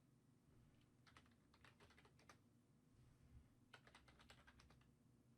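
Faint computer keyboard typing: two short runs of key clicks, one starting about a second in and another near four seconds in.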